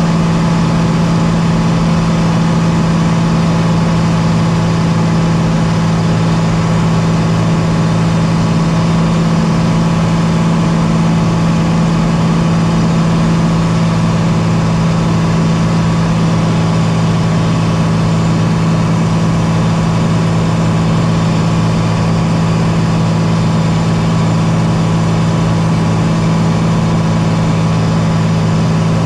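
Light aircraft's piston engine and propeller running steadily, a constant low drone that holds one pitch throughout.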